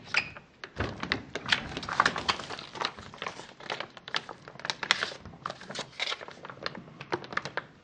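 Plastic packaging of a putty-filled toy blood bag crinkling and clicking as hands squeeze, lift and turn it, a rapid, irregular run of small rustles and clicks, with a soft knock on the tabletop about a second in.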